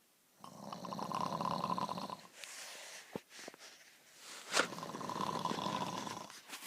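A woman snoring heavily in her sleep: two long, rattling snores about four seconds apart, the first followed by a softer breath out. It is the kind of snoring for which her doctor put her on an oxygen machine to help her breathe while asleep.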